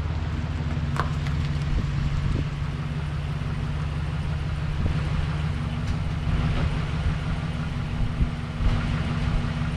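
Truck engine running steadily at idle, with a sharp click about a second in.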